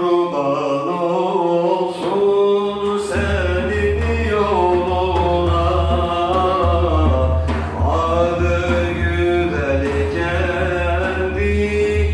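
A man singing an ilahi (Turkish Islamic hymn) solo into a microphone through a PA system, holding long notes with ornamented turns. A steady low drone comes in underneath about three seconds in.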